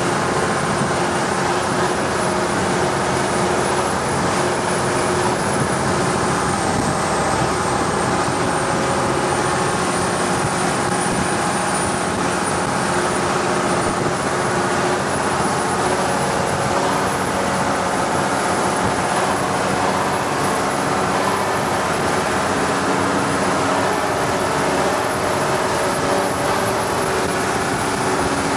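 Longtail boat engine running steadily at cruising speed, a constant drone under a steady rush of wind and water.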